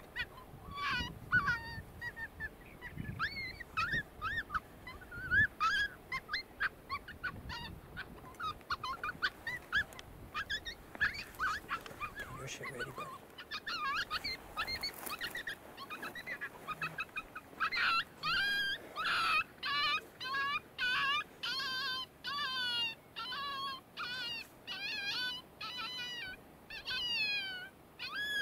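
Coyote yips and howls: many short rising and falling calls, growing into a fast run of yips, about two a second, over the last ten seconds.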